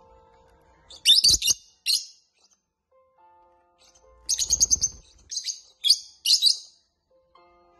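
Lovebirds chirping: a short burst of rapid, shrill chatter about a second in, then a longer run of quick chirps from about four to six and a half seconds in.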